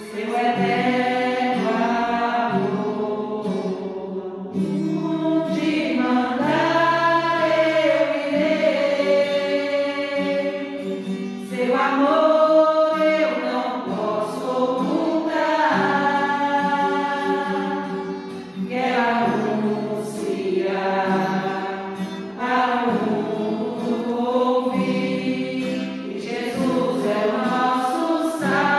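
Women's voices singing a Catholic hymn together, in long phrases with held notes.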